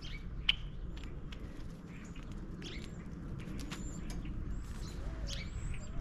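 Several birds calling at a backyard feeder: a run of short chirps and clicks with repeated thin high whistles, and a sharp click about half a second in.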